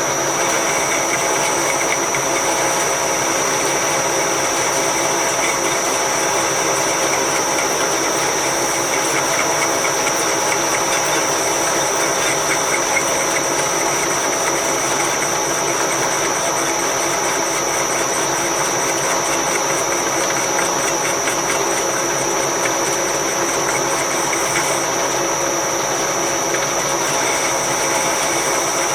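Metal-turning lathe running steadily under a cut, its machine noise carrying a constant high-pitched whine.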